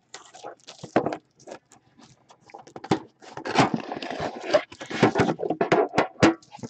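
Plastic shrink wrap crinkling and tearing off a hockey card box. Then the cardboard box is opened and the metal tin inside is handled, making irregular crackles, scrapes and knocks that are busiest from about three seconds in.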